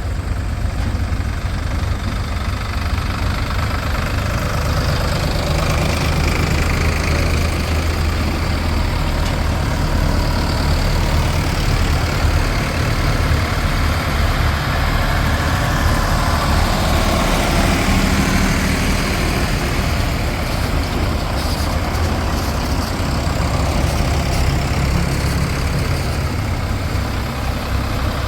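Heavy diesel machinery engines running steadily at a low, even rumble, the sound of a backhoe loader working beside tractors.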